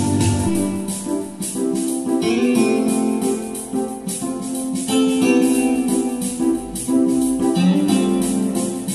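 Instrumental music: an electronic keyboard playing sustained chords and a melody over a steady, light percussion beat.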